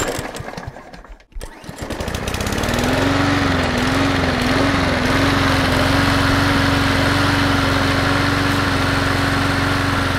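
John Deere X300 riding mower's V-twin engine starting: a rattling crank for about a second, then it catches and revs up. Its speed wavers for a couple of seconds, then settles into a steady run.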